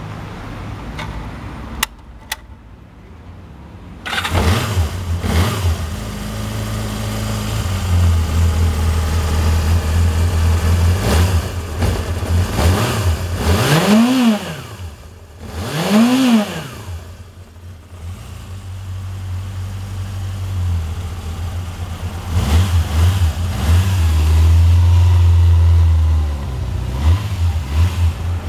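Honda CBR400F's inline-four engine on its stock exhaust starting up about four seconds in, then idling steadily. It is blipped twice in quick rising-and-falling revs, held at raised revs for a few seconds, then blipped again near the end, running with little abnormal mechanical noise.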